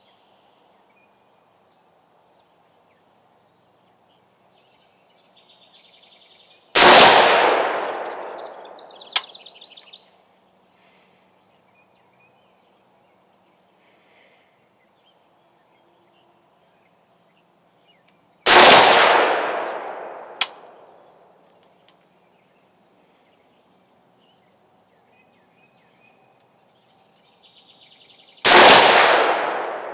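Three rifle shots from a Head Down HD15 AR-15-pattern rifle firing 5.56 ammunition, about ten seconds apart, each followed by a long echoing decay. A sharp click comes about two seconds after each of the first two shots.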